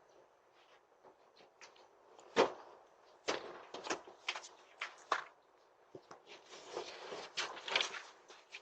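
Scattered knocks and clatters at irregular intervals, with the loudest thump about two and a half seconds in and a busier run of rustling and clicks near the end.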